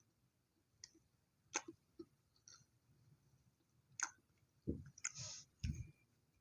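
Close-miked eating of chocolate toast: faint, sharp mouth clicks and crisp bites, with a short crunch about five seconds in and two low thumps near the end.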